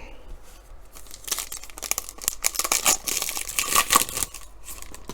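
Trading-card pack's foil wrapper being torn open and crinkled: a dense crackle starting about a second in and stopping just after four seconds.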